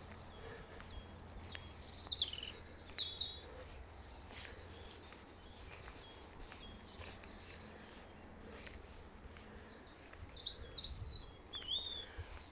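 Small songbirds calling and singing: a few separate high whistled phrases and short trills, one falling whistle about two seconds in and a quick run of calls near the end, over a faint low rumble.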